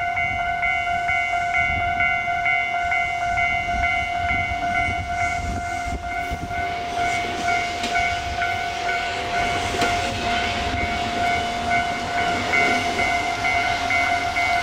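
Japanese railway level-crossing warning bell ringing in a steady, evenly repeating pattern. From about seven seconds in, a louder rush of train noise over the rails builds and then eases, with the bell continuing over it.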